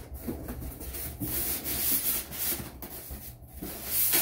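Cardboard box and packing material being rubbed and scraped by hand, an uneven rustling with a louder scrape near the end as packing is pulled out of the box.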